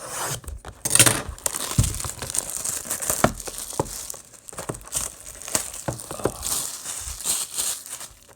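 Plastic wrapping on a box of trading cards being torn and crinkled, a dense irregular crackle with many sharp clicks.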